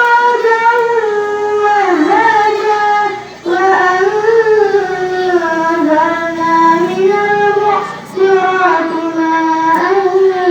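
A young girl chanting Quranic recitation (ngaji) in long, drawn-out melodic phrases, pausing briefly for breath about three and eight seconds in.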